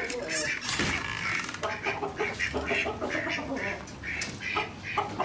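Chickens calling in a steady run of short, repeated clucks and squawks.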